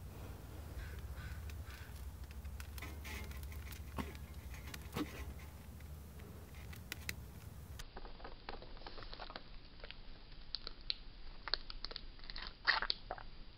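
Scattered faint clicks and ticks over a low hum, then near the end a few sharp clicks as a bearded dragon seizes and bites into a hornworm.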